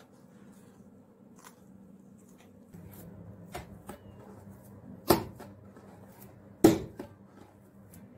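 Bread dough being kneaded by hand on a wooden board: soft rubbing and handling sounds, then two loud slaps of the dough hitting the board, about a second and a half apart.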